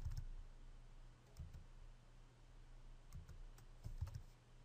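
A few faint clicks from working a computer keyboard and mouse: one about a second and a half in, then a small cluster near the end, each with a soft low thump.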